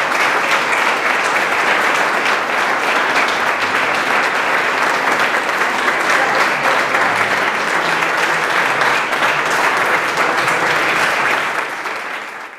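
Audience applauding: dense, steady clapping from a roomful of people, tapering off in the last second.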